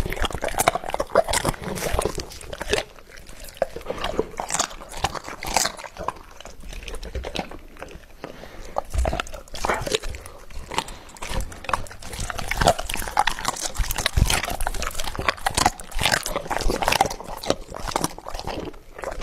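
A large dog chewing and biting raw food from a bowl, with irregular crunches and chomps.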